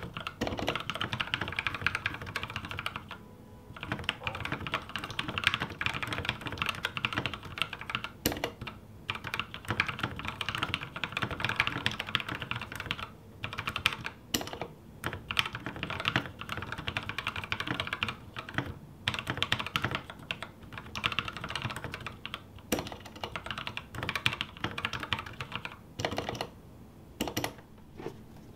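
Fast typing on a custom 60% mechanical keyboard with Novelkeys x Kailh Cream linear switches on an aluminium plate in a bamboo case: a dense run of keystroke clacks broken by a few brief pauses. The stabilized keys are a bit rattly.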